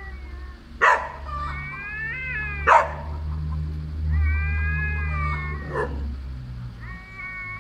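Cats yowling at each other in a standoff: long, wavering wails that rise and fall, broken twice in the first three seconds by short, explosive hisses, the loudest sounds here.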